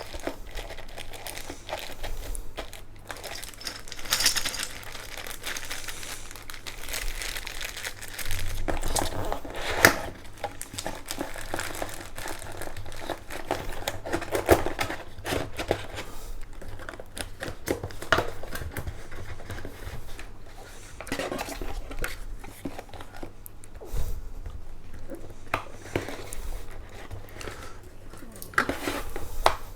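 Packaging being handled and wrapped: plastic or paper crinkling and rustling irregularly, with scattered sharp clicks and handling knocks.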